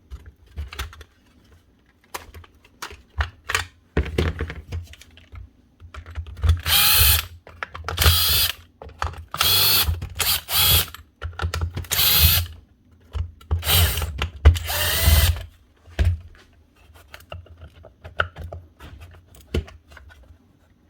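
Cordless drill-driver running in about seven short bursts, each winding up and down in pitch, as screws are backed out of a plastic strimmer housing. Small clicks and knocks of handling come before and after.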